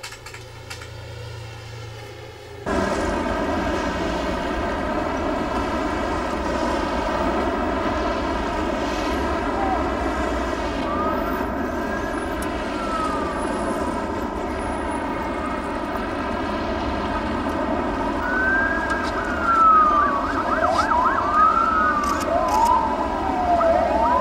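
A low room hush for the first few seconds, then a loud, steady engine drone. Over it, wailing sirens rise and fall, first one about ten seconds in, then several overlapping toward the end.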